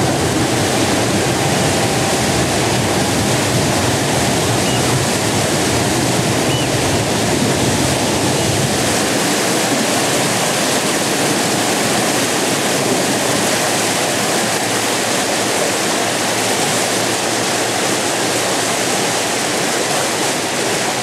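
Steady rushing water: a loud, even hiss with no breaks. The low rumble under it drops away a little before halfway through.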